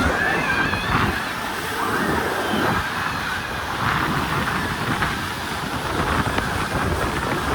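Wind buffeting the microphone over a steady outdoor noise, with faint high voices wavering in and out near the start.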